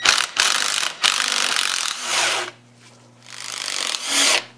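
Cordless drill-driver with a socket spinning out the bolts of a manual transmission's front bearing retainer: one run of about two and a half seconds, a short pause, then a second run of about a second near the end.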